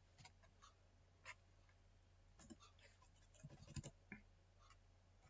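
Faint, scattered keystrokes on a computer keyboard over a low steady hum, with a quick run of keys about three and a half seconds in.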